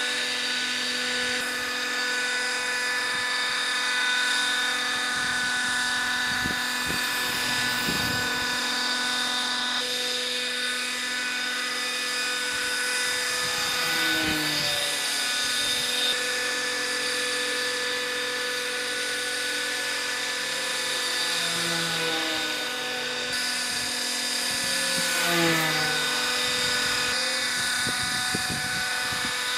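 Electric motor and propeller of a Ripmax Spitfire 600 EP radio-controlled model plane, whining steadily in flight, with a few short pitch glides around the middle and near the end.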